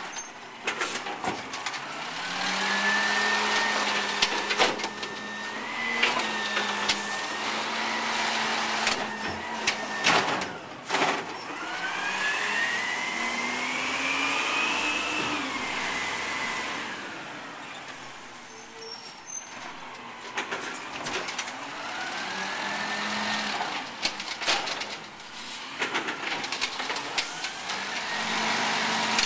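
Peterbilt 320 garbage truck with an Amrep automated side-loader working its arm: the engine revs up and down and the hydraulic whine rises and falls with it several times. Sharp clanks come from the arm gripping and dumping the cart, along with air-brake hisses.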